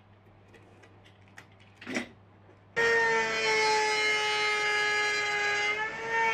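Faint clicks and a short rub as the wing nut of the wooden angle fence is handled. About three seconds in, a jigsaw mounted in a homemade cutting-station table comes in suddenly and runs with a steady whine, its pitch dipping briefly near the end.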